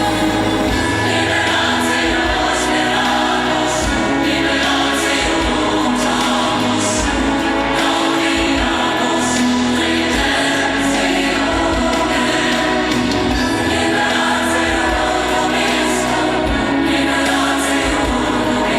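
Music with a choir singing, steady and full throughout.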